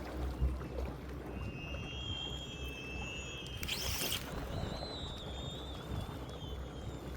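Strong wind rumbling on the microphone over moving water, with a faint high wavering whistle twice and a short hiss about four seconds in.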